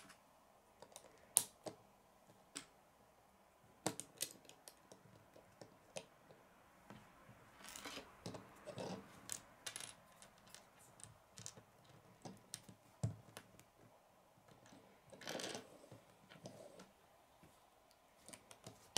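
Small plastic Lego pieces clicking and tapping as they are handled, pressed together and set down on a wooden tabletop, in irregular single clicks with short handling rustles about eight seconds in and again about fifteen seconds in.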